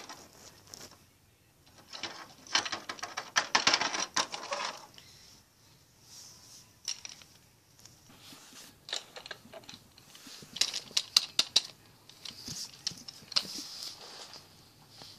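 Light, quick clicking and tapping of plastic dolls and dollhouse parts being handled, in three short flurries with quiet gaps between.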